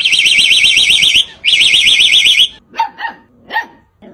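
Two bursts of a fast-warbling car-alarm siren, about a second each, mimicked by a caged black-collared starling as the key fob is pressed. A dog then barks a few times near the end.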